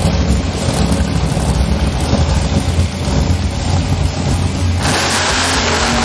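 Monster truck's supercharged V8 running with a deep rumble. About five seconds in it suddenly gets louder and harsher as the truck launches across the dirt.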